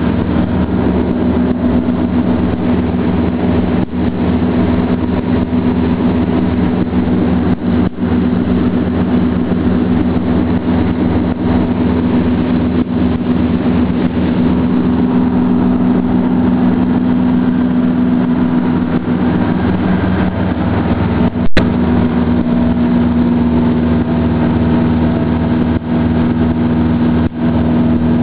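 Tugboat engine running steadily under way, a constant loud drone. A single sharp click cuts through it about two-thirds of the way in.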